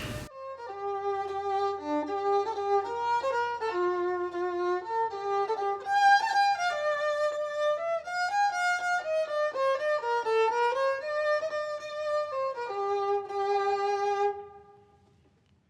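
Background music: a solo melody played over a faint low drone, stopping shortly before the end.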